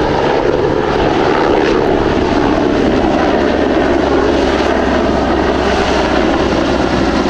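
AgustaWestland AW101 (SH-101A) helicopter flying past: steady, loud rotor and turbine noise from its three turboshaft engines.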